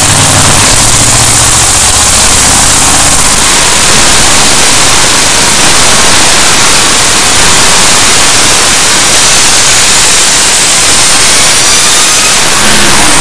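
Supercharged drag-racing engine of about 2900 hp running hard on an engine dyno, so loud that the recording turns to a harsh distorted hiss. A rising whine climbs through the last few seconds.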